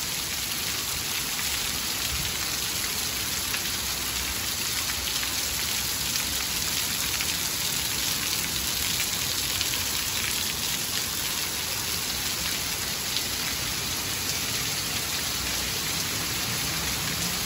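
Heavy rain with large, thick drops pouring down steadily, a dense even hiss with no letup.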